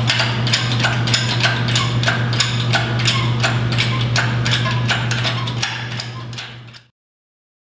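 Steady low hum with sharp mechanical clicks at an even pace of about three a second, fading out about six seconds in.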